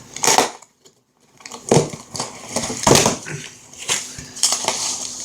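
A parcel being torn open and its packaging handled: a run of short crinkling, tearing rustles, broken by a moment of dead silence about a second in.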